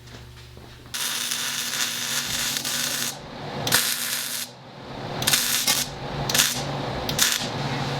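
Arc welding on steel fender and grill supports: a steady crackling sizzle that starts suddenly about a second in, then stops and restarts several times in short runs.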